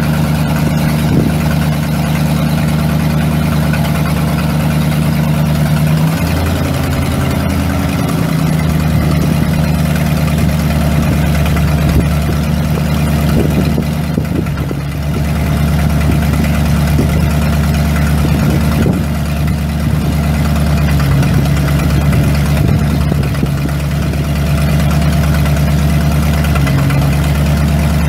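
Eight-cylinder gas engine of a 1979 Ford F800 truck idling steadily, its note shifting slightly around six seconds in and again about twenty seconds in.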